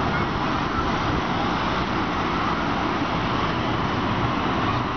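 Steady city traffic noise: cars and motorbikes running through a busy intersection, a continuous even rumble with no single vehicle standing out.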